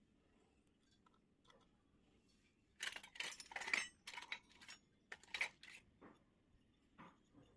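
Small plastic toy kitchen pieces and their packaging being handled: a run of short crinkling and clinking bursts, starting about three seconds in and dying away near the end.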